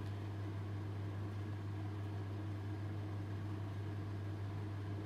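Steady low hum with a faint, even hiss.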